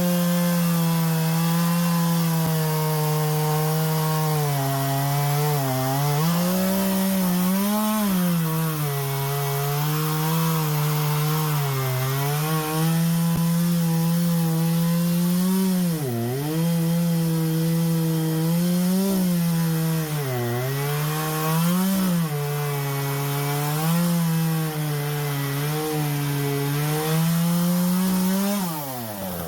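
Husqvarna 120 Mark II two-stroke chainsaw with a Hipa replacement chain cutting wood at full throttle. The engine pitch dips repeatedly as the chain bites into the log and recovers each time. Near the end the throttle is released and the engine winds down.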